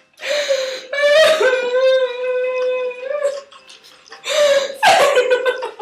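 A person crying and laughing at once without words: broken whimpering sobs, then a long high whining wail held for about two seconds, then more choked, laughing sobs near the end.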